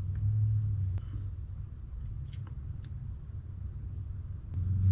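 Small metal parts of a spinning reel being handled and fitted, giving a few faint sharp clicks, over a low hum in the first second and again near the end.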